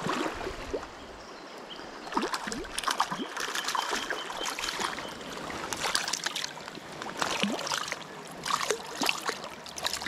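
A small hooked fish splashing at the surface of a shallow river as it is reeled in and taken by hand, with irregular splashes and drips over the flowing water.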